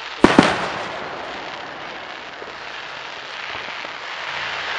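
Two fireworks shells bursting in quick succession about a quarter second in, sharp bangs followed by a fading rumble, over a steady background hiss.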